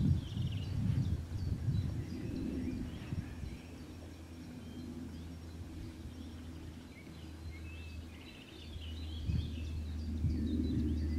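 Wind rumbling on the microphone in uneven gusts, stronger in the first few seconds and again near the end, with small birds chirping faintly in the background.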